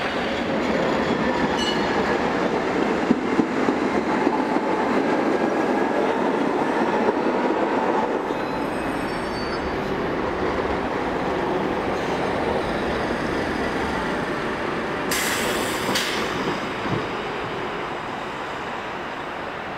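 Street trams rolling through a rail junction: a steady rumble of steel wheels on track, with sharp clicks about three to four seconds in as wheels cross the switches and crossings, faint high wheel squeal on the curves, and a short hiss about fifteen seconds in.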